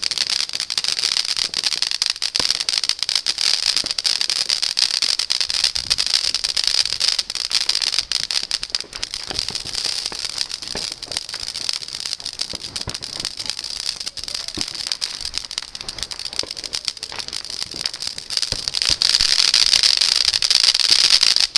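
A ground firework burning, giving off a steady hiss packed with rapid crackling pops. It is loudest at the start, eases off through the middle, then swells again in the last few seconds.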